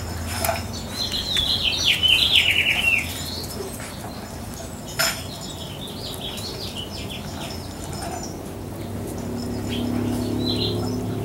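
Yellow Labrador retriever puppies giving high, squeaky squeals and yips as they play-wrestle. A run of them comes in the first three seconds, another a few seconds later, and a short one near the end, with a sharp tap about five seconds in.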